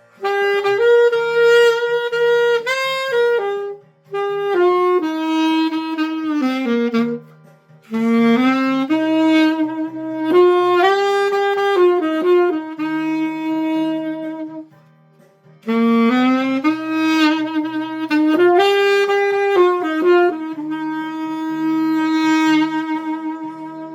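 Selmer Mark VI alto saxophone with a Theo Wanne Durga 5 metal mouthpiece and a synthetic reed, playing a slow, lyrical melody in four phrases with short breath pauses, over a soft backing track. The last phrase ends on a long held note that fades away.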